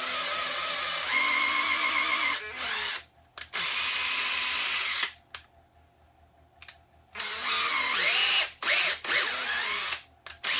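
Cordless Makita drill/driver running a 5 mm tap into a hole in the mill's column. The motor whines in spells as the trigger is squeezed and let go, with a pause of about two seconds in the middle, and the pitch rises and falls near the end as the speed changes.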